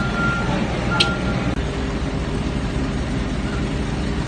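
A vehicle's reversing alarm beeps twice at one steady pitch in the first second and a half, over steady engine and traffic noise. There is a single click about a second in.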